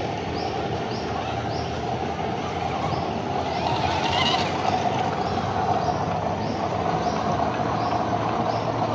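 Electric RC crawler's motor and gears whirring steadily, with a high chirp repeating about twice a second and a brief hiss about four seconds in.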